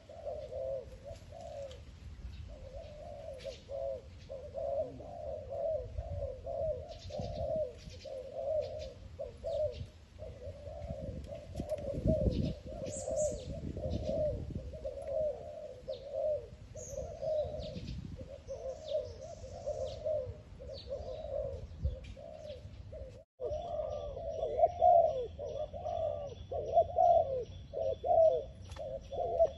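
Spotted doves cooing, one low coo after another with hardly a pause. The calls stop for an instant about two-thirds of the way through, then carry on.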